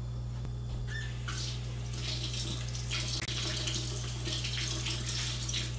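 Kitchen tap running, water splashing into the sink; it comes on about a second in and runs steadily.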